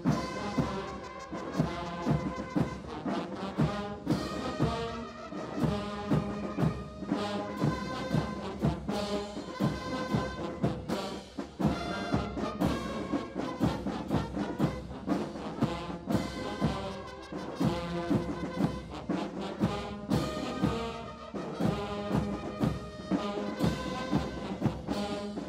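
Air Force military band playing a quick march: brass melody with euphoniums, trombones and trumpets over a steady beat of bass drum and clashing cymbals.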